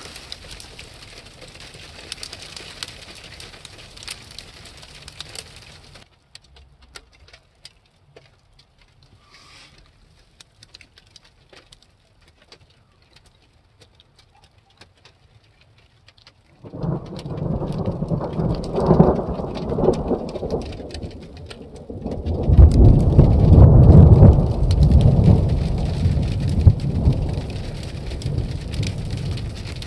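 Falling graupel (snow pellets) making a hiss of many small ticks, thinning to scattered ticks, then a long roll of thunder from a thundersnow storm starting a bit past halfway. The thunder swells, eases and swells louder again before slowly fading.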